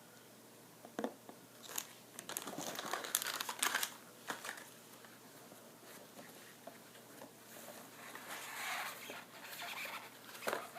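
Packaging crinkling and rustling in bouts while items are handled and unwrapped, with a few light clicks and knocks: a dense stretch of crinkling about two to four seconds in and a softer one near the end.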